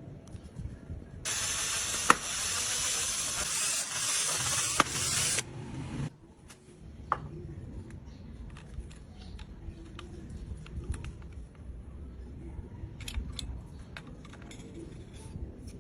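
A steady spray hiss lasting about four seconds, starting a second in and cutting off suddenly, with two sharp clicks during it. Then a run of small scattered clicks and knocks from handling.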